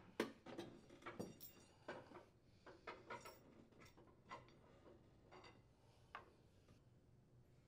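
Faint clicks and clinks of metal parts being handled as a steering support and washer are slid off a riding mower's steering shaft and the shaft is pulled out. The taps come irregularly, several a second at first, then thin out over the last few seconds.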